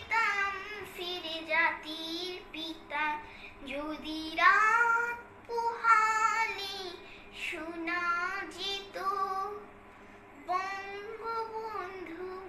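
A young girl singing unaccompanied in long, held phrases with short breaths between them.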